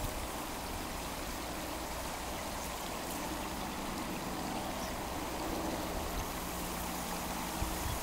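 Water running steadily through and over a beaver dam, an even trickling rush.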